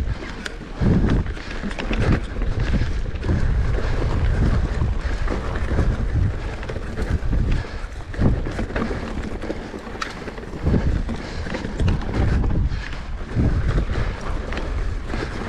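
Wind buffeting the microphone, a rumbling noise that swells and dips in uneven gusts, with faint scattered clicks.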